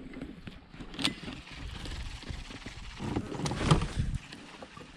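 Wind buffeting the microphone in gusts, with a few sharp knocks and clicks of handling, about a second in and again near four seconds.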